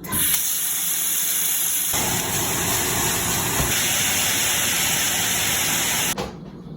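A loud, steady hiss that starts abruptly, grows fuller about two seconds in, and cuts off suddenly a little over six seconds in.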